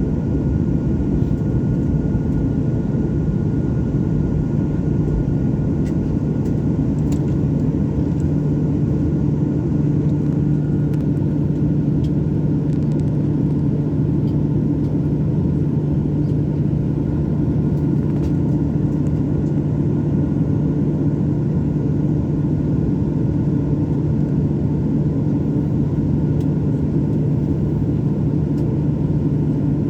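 Steady low drone of a jet airliner, with a constant low hum that holds level throughout.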